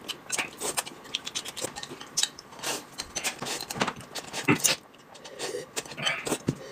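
Eating at a table: noodles slurped in short irregular bursts, with chopsticks clicking against ceramic bowls.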